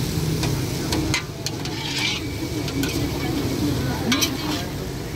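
Chow mein noodles sizzling in a large steel wok while a metal spatula stirs and tosses them, clanking and scraping against the wok several times, most sharply about four seconds in.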